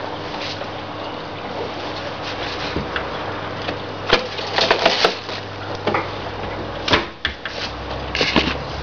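Neff dishwasher running at the start of its Eco 50 programme, before the water comes in: a steady low hum with a few scattered clicks and knocks.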